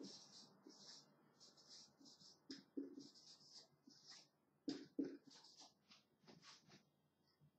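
Faint handwriting: a run of short, high scratchy pen or marker strokes with small gaps between them and a few light clicks.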